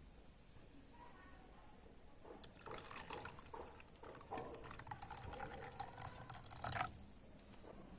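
Liquid being poured for about four seconds, ending abruptly near the end.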